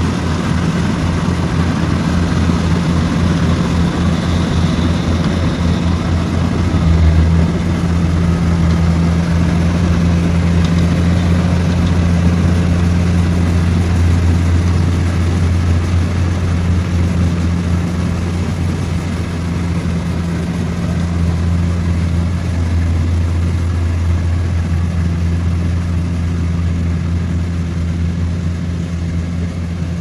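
Small rice combine harvester's engine running steadily as it cuts rice, a low, even drone that swells briefly about seven seconds in.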